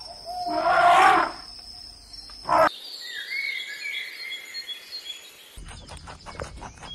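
A loud animal call lasting about a second, then a short burst, then birds chirping in short gliding phrases, with a run of quick clicks near the end.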